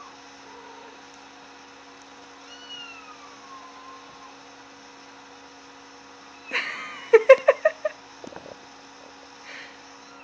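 Mewing calls of a cat: faint falling mews early on, then a little past halfway a sudden loud burst followed by a quick string of about eight short, pulsed calls, as a mother cat answers a kitten-mewing ringtone played on a phone.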